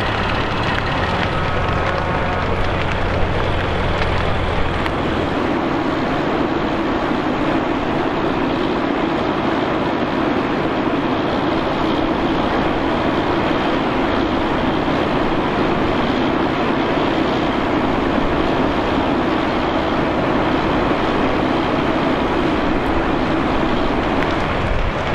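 Fire engines running steadily, their pumps feeding hose and master streams: a constant mechanical din. A low hum in the first five seconds gives way to a slightly higher steady drone.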